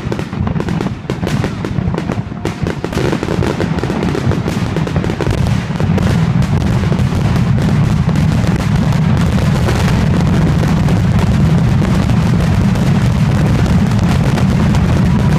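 Fireworks going off in a rapid barrage of bursts and booms. About six seconds in it thickens into a continuous, louder rumble of overlapping explosions.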